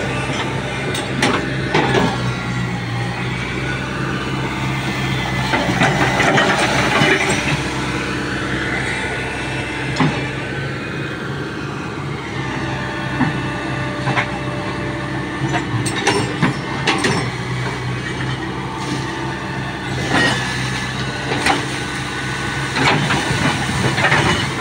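Hitachi hydraulic excavator's diesel engine running steadily, its pitch rising and falling as the boom and bucket work. Water splashes as the bucket scoops from the canal and throws it over a steel bridge deck, with scattered sharp clanks.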